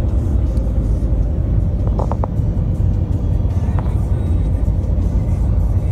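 Steady low road rumble inside the cab of a Ford vehicle cruising at highway speed: tyre and engine noise, with a couple of faint clicks about two seconds in.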